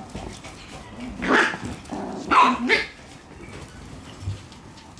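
Shiba Inu puppies barking at play: three short barks, one about a second and a half in and two close together about a second later.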